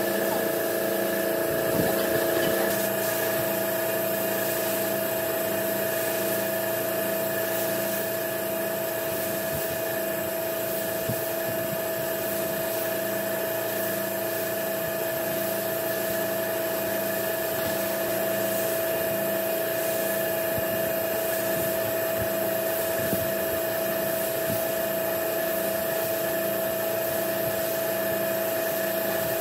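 Compressed-air spray gun hissing steadily as it sprays finish, over a constant mechanical hum.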